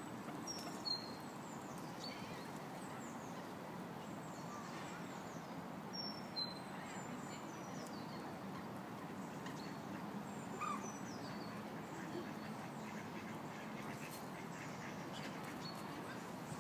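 Outdoor ambience: a steady hiss with small birds chirping, short high calls that fall in pitch and repeat every second or so, and a few brief louder calls.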